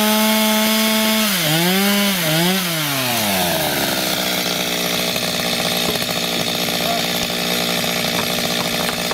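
Two-stroke chainsaw trimming wooden piles. It runs at high revs at a steady pitch, dips twice about one and a half to two and a half seconds in, then winds down to a steady idle by about four seconds in.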